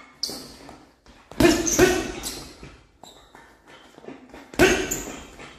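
Gloved jabs landing on a hanging Adidas heavy punching bag: about six hits, one near the start, a run of three a little over a second in, and a pair near the end, each a sharp smack that rings out briefly.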